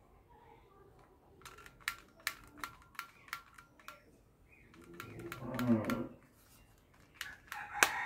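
A red plastic toy pistol being handled: a quick run of sharp plastic clicks, a short scraping rub about five seconds in, then a few more clicks near the end.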